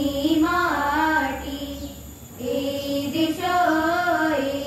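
Schoolgirls singing a song in Odia into microphones, in two sung phrases with a short break for breath about two seconds in.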